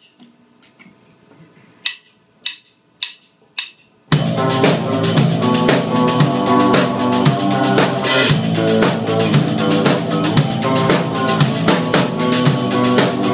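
Four sharp clicks about half a second apart, then, about four seconds in, a drum kit starts a dance groove over a recorded song: a 16th-note hi-hat pattern with doubled strokes in the left hand, with kick and snare.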